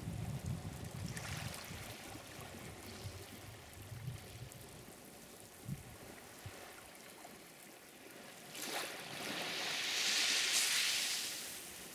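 Sea surf: waves washing on a shore with a low rumble, and one wave surging in and draining away over about three seconds near the end.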